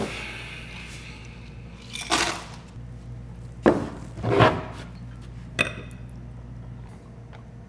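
Whiskey bottle and short glass handled on a wooden bar counter as a neat drink is poured and handed over. There are four glass knocks and clinks, the loudest a little past four seconds in.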